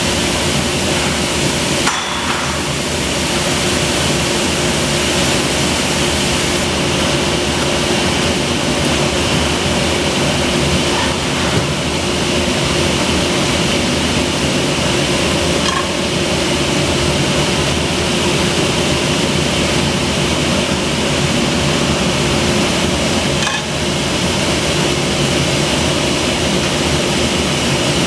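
Automatic-feed carbide circular saw for aluminium profiles running: a steady machine hum with a high whine. There is a sharp knock about two seconds in and another near the end.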